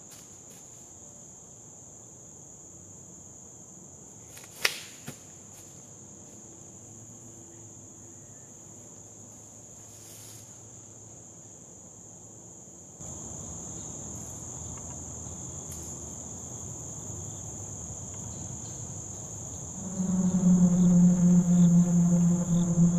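Steady high insect chorus in woodland, with one sharp click about five seconds in. The background noise steps up about halfway through. Near the end a loud low droning tone with overtones comes in, sliding slightly down in pitch.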